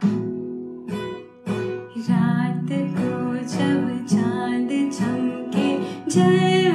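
Acoustic guitar strumming and plucking chords, with a voice singing a melody over it from about two seconds in.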